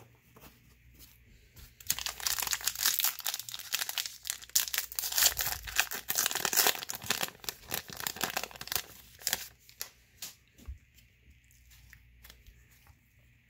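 A baseball card pack's crinkly wrapper being torn open and crumpled, a dense crackling that starts about two seconds in and dies away after about seven seconds. Faint ticks of cards being handled follow.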